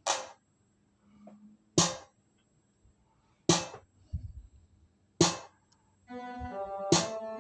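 Playback of an original, self-produced beat: a sharp clap-like hit lands about every 1.7 seconds, with a low bass thud between two of them. About six seconds in, held keyboard or synth chords join the beat.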